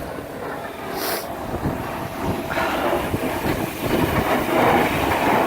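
Strong wind buffeting the microphone in a snowstorm, a rumbling rush that swells in gusts, loudest near the end.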